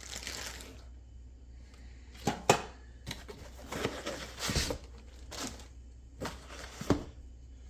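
Parts of a smart deadbolt lock set being handled out of their packaging: light rustling broken by a series of sharp clicks and knocks of hard parts, the loudest about two and a half seconds in and again near the end.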